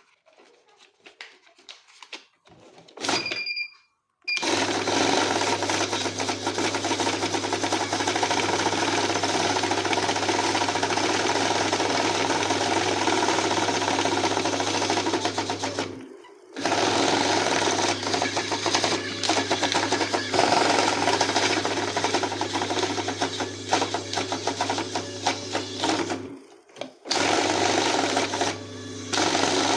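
Electric banknote counting machine running, its motor whirring steadily while the notes riffle through in rapid flicks. A short beep sounds about three seconds in, and the run stops briefly twice, about twelve and twenty-two seconds in, before starting again.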